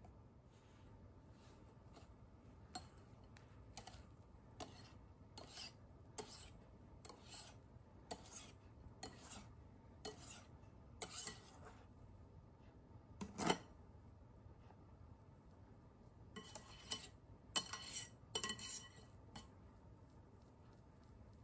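Wire hand whisk folding meringue into batter in a glass bowl: soft strokes with light clicks of the wires against the glass, about one a second. There is one sharper tap a little past halfway and a quicker run of strokes near the end.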